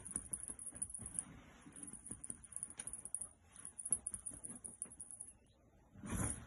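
A kitten scrambling and pouncing on a bedspread and pillow: soft rustling of fabric and light patter of paws, with a louder burst of movement about six seconds in as it leaps.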